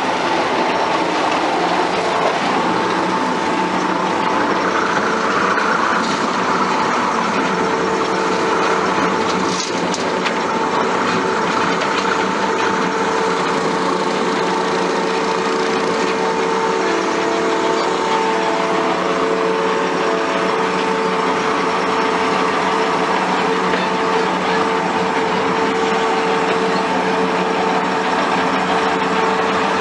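Skid steer engine running steadily while powering a hydraulic-motor-driven rotary mower deck, with a steady hum of several held tones and a single knock about ten seconds in.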